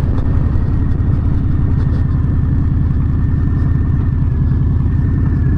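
Harley-Davidson Low Rider S V-twin engine running steadily at a constant cruise. Its low, even firing pulse is picked up by a helmet-mounted camera.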